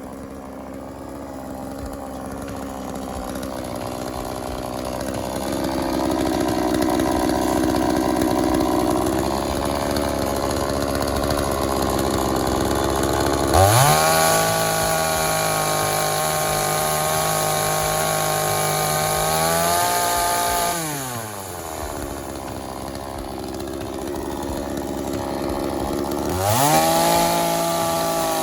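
Blue Max two-stroke gas chainsaw running hard, its engine held down at a lower, labouring pitch as if cutting into wood. About halfway through it revs up sharply to a high, steady pitch for several seconds, drops back toward idle, then revs up high again near the end.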